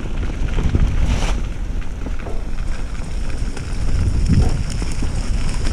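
Wind buffeting the microphone of a camera on a moving mountain bike, over the low rumble of its tyres rolling on a leaf-covered dirt trail, with a few thumps from bumps, the heaviest about four seconds in.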